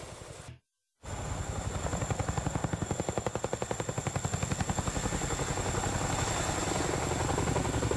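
Boeing CH-47 Chinook tandem-rotor helicopter flying overhead: rapid, even blade thumping from its twin rotors, with a high steady whine above it. The sound starts abruptly after a brief drop to silence just under a second in.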